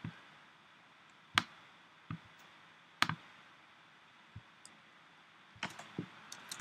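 About half a dozen sharp, scattered clicks of a computer pointer button as the pointer clicks through an app's tabs, over a faint room tone.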